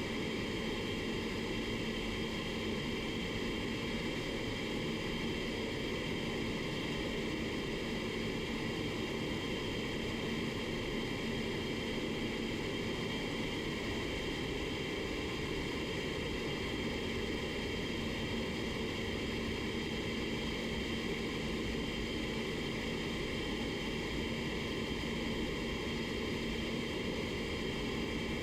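Steady rushing air with a constant low hum inside an auto paint spray booth while clear coat is being sprayed, unchanging throughout.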